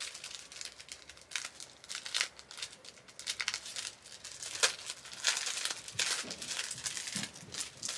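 Clear plastic packaging bag crinkling and rustling as it is handled and folded, in uneven crackles, the sharpest about halfway through.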